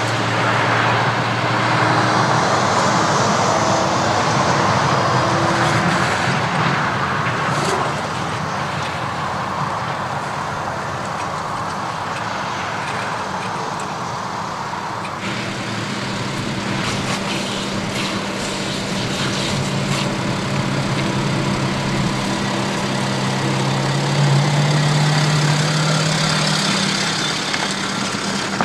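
BMW X6 M50d's triple-turbo straight-six diesel running at low revs as the SUV crawls up a rocky stone track, a steady drone whose low tones shift about halfway through, with a few short clicks from the stones.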